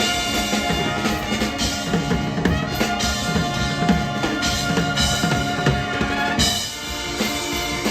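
Live pep band playing: held horn notes over a moving bass line, with drum kit, bass drum and snare driving the beat. The music changes abruptly about six and a half seconds in, the upper notes dropping away.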